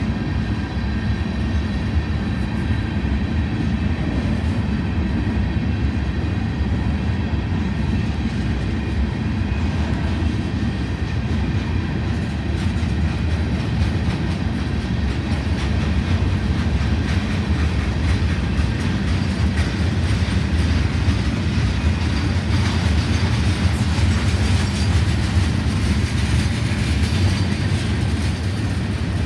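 Freight train cars, covered hoppers and then tank cars, rolling past at close range: a steady rumble and clatter of steel wheels on the rails.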